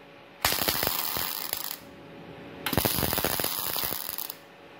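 MIG welding arc from a Multipro MIG-MAG 250NF welder crackling in two short bursts of about a second and a half each, with a quiet gap between them: short spot welds.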